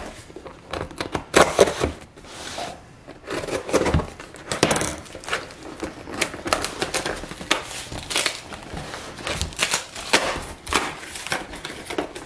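A package being opened by hand with scissors: cutting, and packaging crinkling and rustling, with many scattered short clicks and taps.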